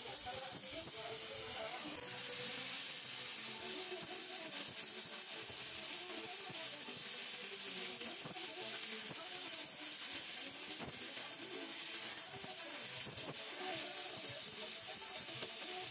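Gas welding torch flame hissing steadily as it melts aluminium filler rod onto an aluminium crankcase.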